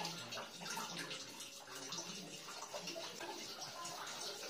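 Faint rustling and crinkling of PTFE thread-seal tape being wound by hand around a fitting's threads, over a low steady hiss.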